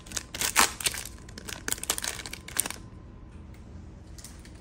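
A trading card pack wrapper crinkling and tearing as it is ripped open by hand, dense and crackly for about the first two and a half seconds. Then it goes quieter, with a couple of light clicks.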